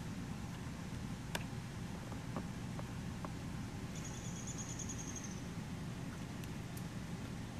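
Small precision screwdriver turning screws into a laptop's metal screen frame, giving a few light clicks, over a steady low background rumble. About four seconds in there is a high, pulsed trill lasting about a second and a half.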